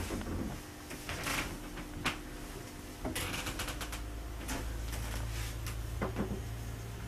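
Irregular light clicks, knocks and rustling from a handheld camera being moved and handled in a boat's wood-panelled cabin. A low steady hum comes in about three seconds in.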